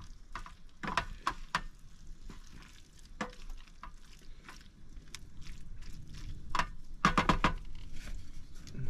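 A cooking utensil stirring and breaking up noodles in a pan, clinking and knocking against the pan, with a quick run of several knocks about seven seconds in.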